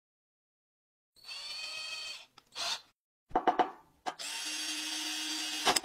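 Cordless drill motor spinning for about a second with a steady high whine, then a few sharp clicks, then the drill running under load for about two seconds as its twist bit bores into the edge of a table, ending with a sharp click.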